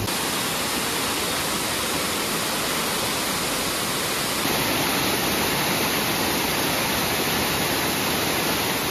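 The Kibune River pouring over a low, rocky stepped cascade: a steady, loud rush of water that gets slightly louder about halfway through.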